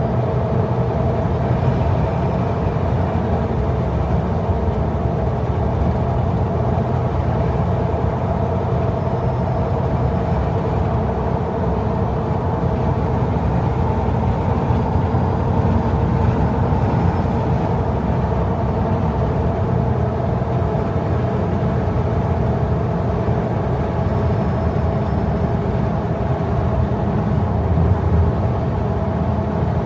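Jeep driving at highway speed, heard from inside the cabin: a steady hum of engine and tyre road noise with an unchanging low drone.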